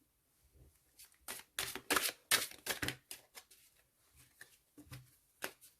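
Tarot cards being shuffled and handled: an irregular run of crisp flicks and taps, busiest about two seconds in.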